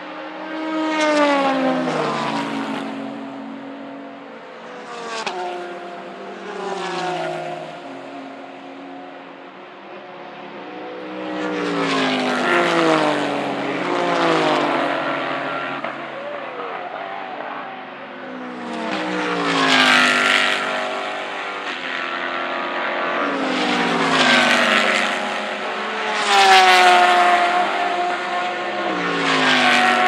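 GT race cars braking hard for a corner one after another, their engine notes falling in steps as they downshift. Several cars come through in turn, each a fresh swell of engine sound, the loudest bunched near the middle and the end.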